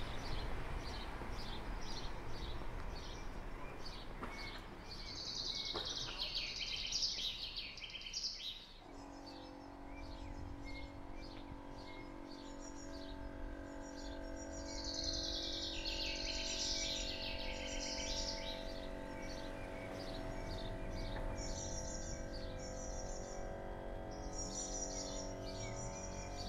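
Small songbirds chirping over and over, with several bursts of fuller song. A steady background noise gives way about nine seconds in to a steady hum made of several held tones.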